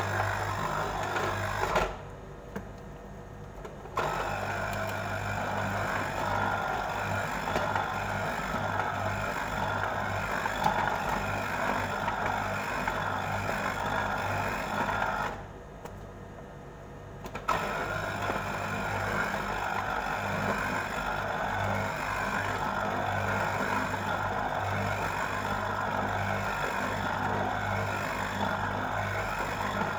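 Braun electric citrus juicer's motor running as an orange half is pressed onto its spinning reamer cone, a steady whirring hum. It stops twice for about two seconds, about two seconds in and again about fifteen seconds in.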